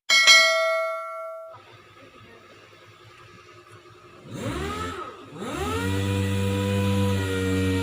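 A sharp metallic ding that rings out for about a second and a half, then an electric power tool's motor that winds up and down briefly twice before spinning up about five and a half seconds in and running at a steady whir.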